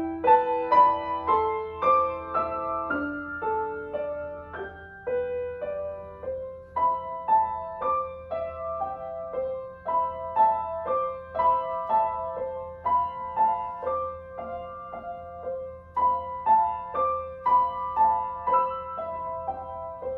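Upright piano played solo: a melody of single notes over held chords, at an even pace of about two to three notes a second.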